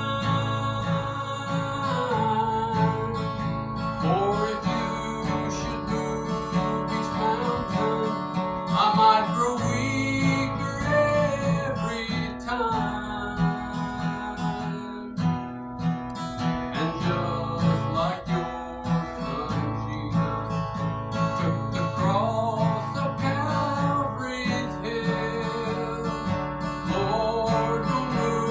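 Acoustic guitar strummed in a steady rhythm while a voice sings a song.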